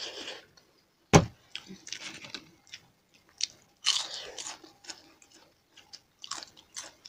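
Close-miked eating by hand: chewing, with crisp crunches as a fried papad wafer is bitten, the biggest a few seconds in. A single sharp knock about a second in is the loudest sound.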